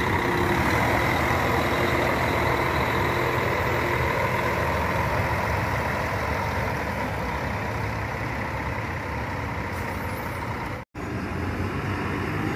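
Diesel engine of a double-decker coach pulling away and driving off, a steady hum that slowly fades as it goes. After a momentary break near the end, another bus's engine is heard more faintly.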